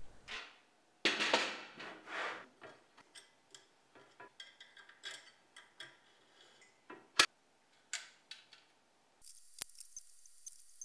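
Aluminium plate scraping and clanking as it is set into an aluminium-extrusion frame, followed by scattered small clicks and taps of hands fitting it in place, with one sharp click about seven seconds in.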